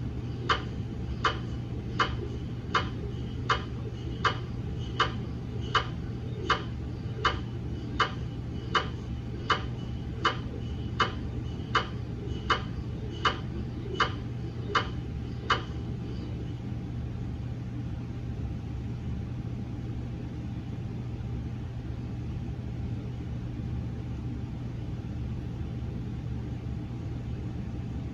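GE MRI scanner's gradient coils knocking in a slow, even rhythm, about four knocks every three seconds, while a scan sequence runs. The knocking stops about halfway through, leaving a steady low hum.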